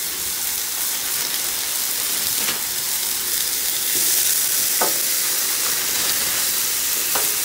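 Raw thin-sliced sirloin steak and bell pepper and onion strips sizzling on a hot Blackstone steel flat-top griddle, a steady frying hiss that grows a little louder about four seconds in. A few brief soft clicks sound over it.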